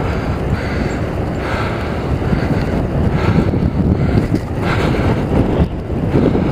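Wind buffeting a helmet-mounted camera's microphone while riding a mountain bike: a loud, steady, low rumble.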